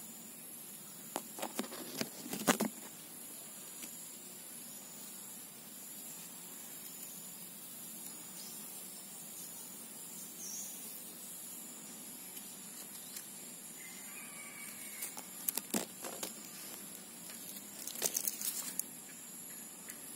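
Steady high-pitched insect chorus, with short bursts of crackling clicks about two seconds in and twice more near the end.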